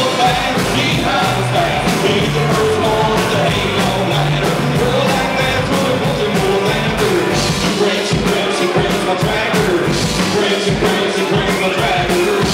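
A live country-rock band plays loud and steady, with electric and acoustic guitars over a drum kit.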